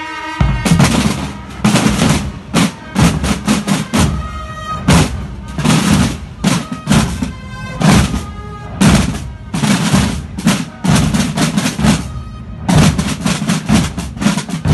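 Marching carnival drum band of bass drums and snare drums playing a loud, driving beat in grouped strokes and rolls, starting about half a second in.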